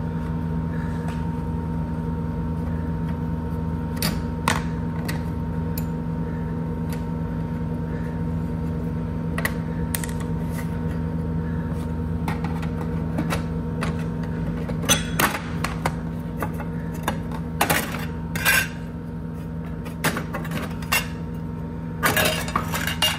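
Screwdriver and thin sheet-metal cover of an electric baseboard heater's junction box clicking and clinking as the cover is unscrewed and worked loose, the knocks coming more often in the second half. A steady low hum runs underneath throughout.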